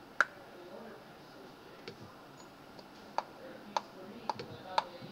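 Computer mouse clicking: about six short, sharp clicks at uneven intervals, the first and loudest just after the start.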